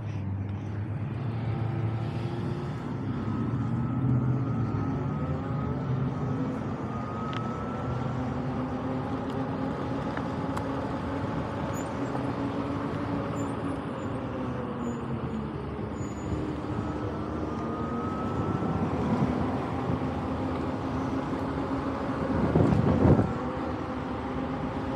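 A 52V 3000W conversion-kit electric motor on a mountain bike whining under way, its pitch rising twice as it speeds up, over steady wind and tyre noise. A brief louder rush near the end.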